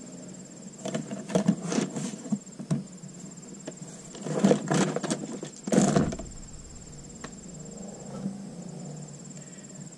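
A cricket trills steadily in the background. Over it come short bursts of clatter and rustle, at about one to two seconds, four and a half seconds and six seconds in, from hand tools or Torx bits being handled.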